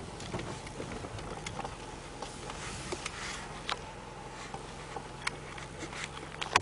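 Car engine idling, heard from inside the cabin as a steady low hum. Scattered light clicks and ticks sound over it, a few at a time.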